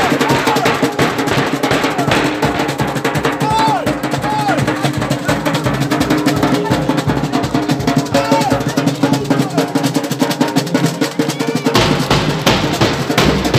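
Carnival street drum band playing a fast, driving rhythm on large marching bass drums and snare drums. The deepest bass drum beats drop out for a couple of seconds and come back strongly near the end.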